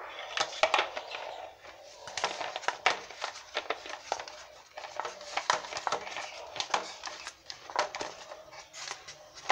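Hand handling of small plastic sprayer parts and hoses being fitted together: irregular clicks, taps, rubs and crackles.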